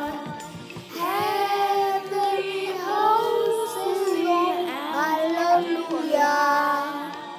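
Children singing together, a melody in several held and gliding phrases, with a short break about a second in before the singing picks up again.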